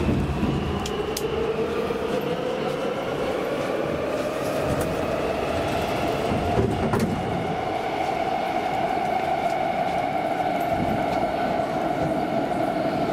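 Subway train's traction motors whining, rising in pitch as the train picks up speed and then holding steady, over a constant rolling rumble. There is one sharp click about two-thirds of the way through.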